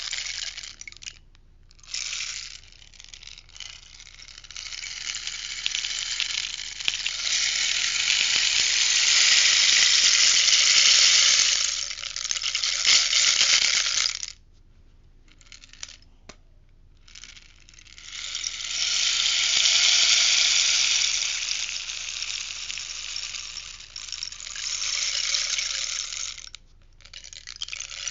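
Rainstick turned over, its pellets trickling down inside in a long cascading rush that swells and fades. After a short pause it is turned again for a second long pour.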